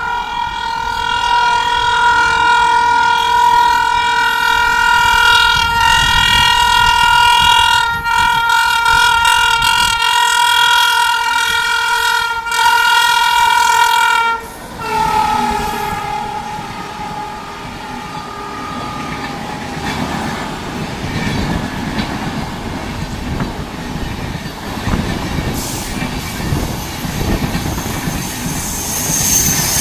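WAP7 electric locomotive's horn honking madly, held almost nonstop for about fourteen seconds with a few short breaks, then dropping in pitch as the locomotive passes and fading out. After it, the coaches roll past with a steady rumble and wheel clatter.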